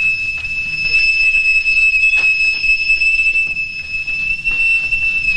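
Stovetop whistling kettle screaming at the boil: one steady, piercing high whistle held throughout.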